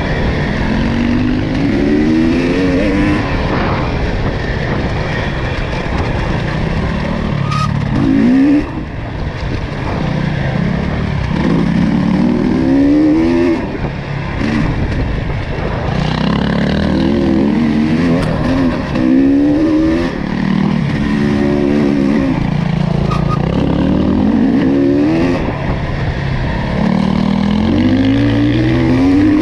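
ATV engine being ridden, revving up again and again: its pitch climbs, drops back and climbs once more every few seconds as the throttle is worked, over a rough low rumble.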